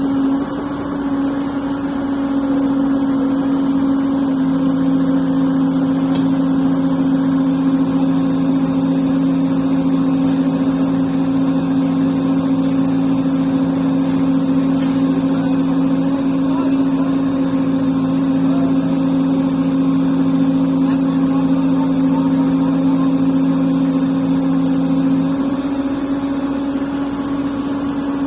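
Diesel engine of heavy construction machinery running steadily under load, a constant drone with a lower hum that joins about four seconds in and drops out near the end.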